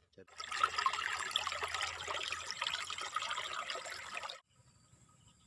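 Wet, crackly splashing and trickling of water, dense with tiny ticks. It cuts off suddenly about four seconds in.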